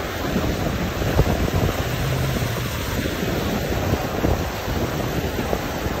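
Wind buffeting the phone's microphone, over the rush of swift river water splashing against shoreline rocks.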